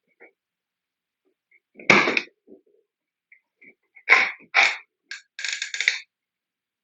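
X-Shot Hawkeye foam dart blaster firing with a sharp puff of air about two seconds in, followed by a run of short clicks and clacks a couple of seconds later.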